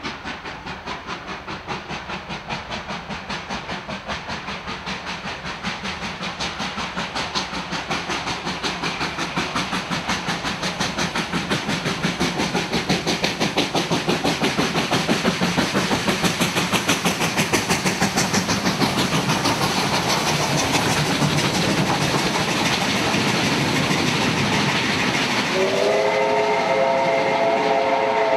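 Two Victorian Railways steam locomotives, R class R711 and K class K183, double-heading, with a fast, even exhaust chuffing that grows louder as they approach. Near the end a steam whistle sounds, several notes at once, held steady, as the carriages rattle past.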